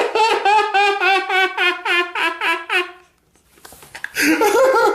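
A person's high-pitched laughter: a fast run of short, evenly spaced "ha" pulses lasting about three seconds, a brief pause, then another loud burst near the end.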